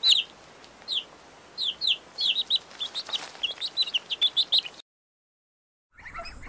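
Domestic chicks peeping: short, high, falling peeps in quick runs, several a second. They stop about five seconds in, and after a brief silence a lower chirping of ducklings starts near the end.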